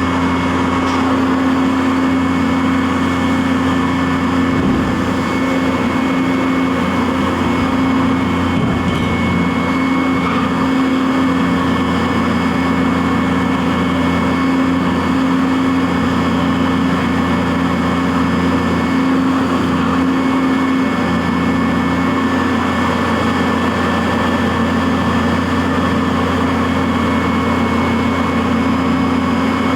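CNC vertical milling machine running steadily while milling Delrin parts: a steady low hum with a high tone above it and an even rush of machine noise.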